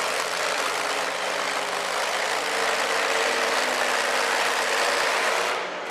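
Heavy engine of a two-wheel-drive pulling tractor running loud and steady, with a brief dip near the end.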